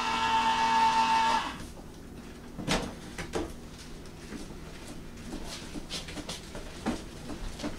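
Electric can opener motor whining steadily, then cutting off about a second and a half in. A few light knocks and clatters of cans and utensils on the counter follow.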